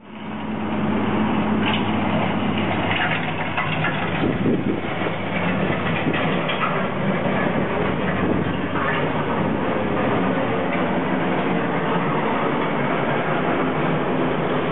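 Heavy construction machinery running steadily at a pipe-replacement excavation, with scattered knocks and scrapes.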